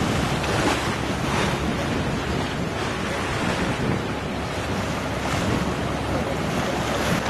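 Wind buffeting the microphone in uneven gusts over the rush of waves and water along the hull of a sailing yacht under way.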